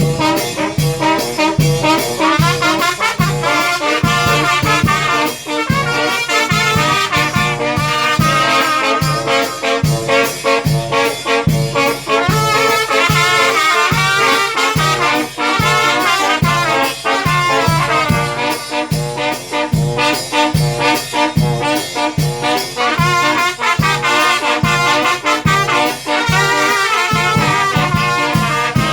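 Mexican banda brass band playing, trumpets and trombones carrying the tune over a steady, even beat in the bass.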